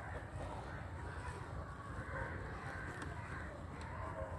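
Crows cawing faintly now and then over a low, steady background rumble.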